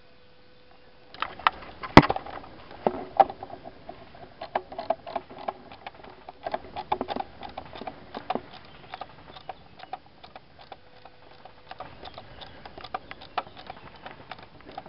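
Footsteps and rustling through leafy undergrowth, with dense irregular crackling of leaves and twigs starting about a second in. A single sharp snap about two seconds in is the loudest sound.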